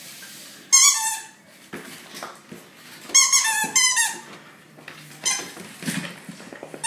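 A squeaky toy ball squeezed in a West Highland White Terrier's jaws, giving clusters of short, high squeaks: a loud group about a second in, another around three to four seconds in, and fainter ones later, with a few soft knocks on the floor.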